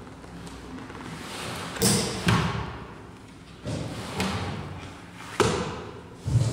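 Pages of a thick paperback comic album being turned one after another. Each turn is a rising swish of paper ending in a sharp slap as the page drops flat, about six slaps in all, falling roughly in pairs.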